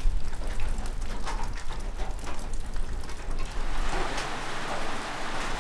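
Steady heavy rain: many separate drops tapping, thickening into a denser, louder hiss about three and a half seconds in.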